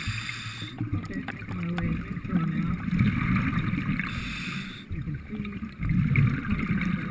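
Underwater sound of a diver's breathing: air rushing in and exhaust bubbles rumbling out in alternating cycles every two to three seconds, with scattered small clicks.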